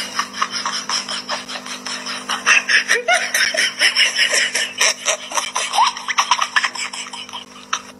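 Laughter, giggling and chuckling in quick pulses over a steady low hum.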